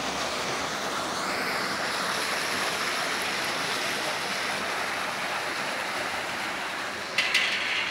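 Water rushing steadily down a small stone spillway into a concrete channel, with a brief burst of clicks about seven seconds in.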